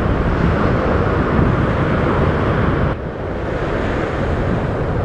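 Wind buffeting the microphone with ocean surf washing behind it, a steady rushing noise that eases a little about three seconds in.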